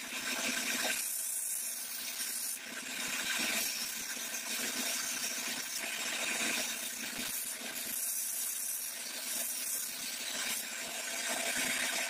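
Steel knife blade being ground on a belt grinder to form its bevel: a steady hissing rasp of the abrasive belt on the metal over the machine's running hum, with a brief dip about two and a half seconds in.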